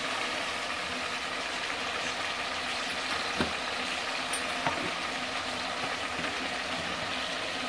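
A steady mechanical hum and hiss, with a faint click about three and a half seconds in and another just before five seconds.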